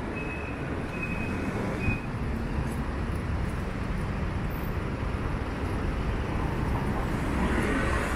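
Busy city street traffic: a steady rumble of passing buses, cars and scooters, with a few short high tones in the first two seconds.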